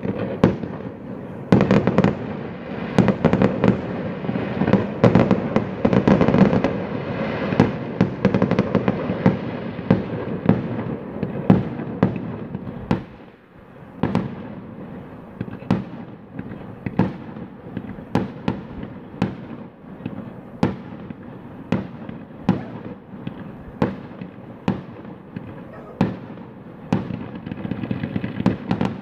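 Aerial fireworks bursting: a dense run of bangs over a continuous crackle, then, after a brief lull about halfway through, sharper single bangs about one a second.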